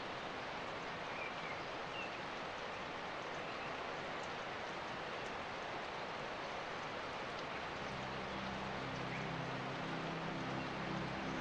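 Outdoor countryside ambience: a steady rain-like hiss with a few faint, short high chirps, likely birds. About eight seconds in, a low steady hum comes in underneath, such as a distant engine makes.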